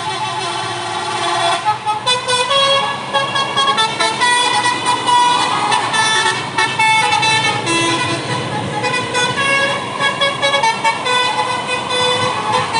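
A bus's basuri musical air horn playing a melody of many short notes that change pitch in quick steps.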